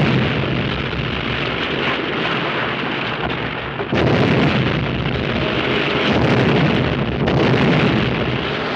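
Huge explosion on an old film soundtrack: a continuous heavy rumble, with fresh blasts about four seconds in and again about seven seconds in.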